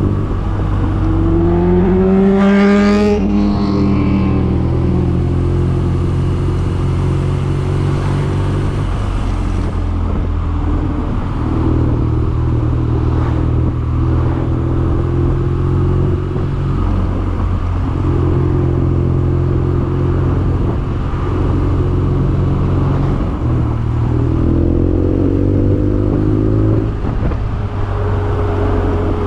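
BMW R nineT's boxer-twin engine running under way, rising in pitch in the first few seconds and again near the end, holding steady in between with a few steps in pitch.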